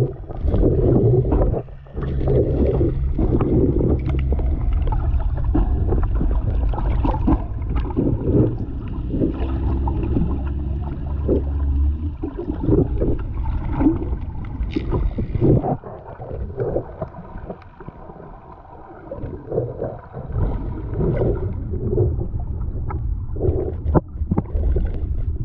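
Muffled underwater sound through a GoPro's waterproof housing: water sloshing and gurgling in irregular surges, quieter for a few seconds past the middle.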